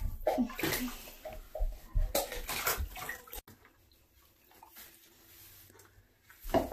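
A beagle puppy's paws scrabbling and scuffing in a bathtub: quick rustling scrapes for about three seconds, then it goes quiet.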